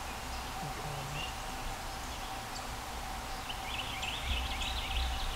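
A wild turkey gobbling at a good distance, over steady woodland background noise, with a short run of high songbird chirps in the second half.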